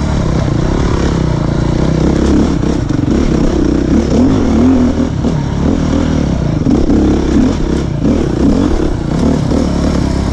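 Beta 350 RR Race Edition's single-cylinder four-stroke dirt-bike engine under way on a trail, its pitch rising and falling again and again as the throttle is opened and closed.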